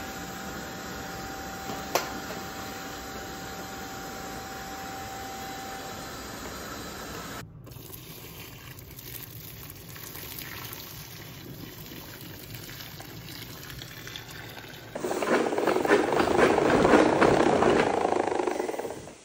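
A vacuum cleaner runs with a steady hum, with one click about two seconds in. After a cut, hot water is poured from a kettle into a mop bucket. About fifteen seconds in, a Vileda spin mop whirs loudly for about four seconds as it is spun in the bucket's wringer basket.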